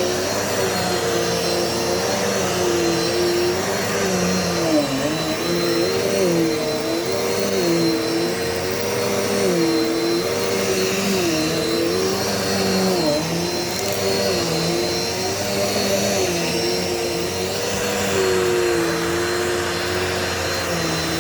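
Dirt Devil Multi-Surface vacuum cleaner running steadily on carpet, its brush roller spinning. The motor's whine dips slightly in pitch and recovers over and over, about once every second or so.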